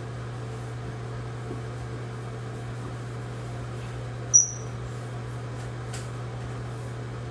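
A steady low hum throughout, with one short, high metallic ping a little past the middle and a faint click soon after.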